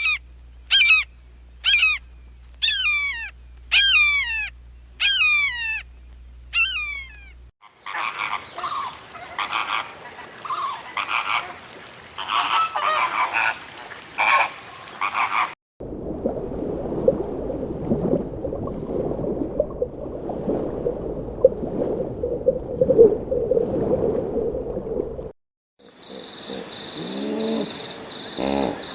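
A run of animal calls in several sections that cut abruptly one into the next: first about seven repeated calls that fall in pitch, then a noisier stretch of calls, then a low dense chorus, and near the end a different sound with steady high tones.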